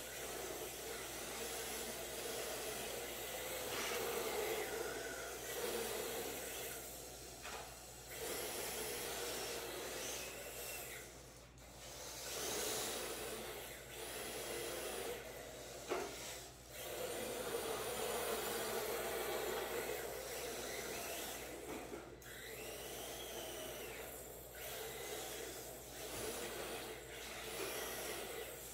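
Two RC drift cars, a Sakura D4 and an MST, sliding through drifts on a smooth concrete floor: a continual hissing scrub of hard drift tyres. It swells and fades every few seconds as the cars accelerate and slide, with a short rising-and-falling whine about three quarters of the way through.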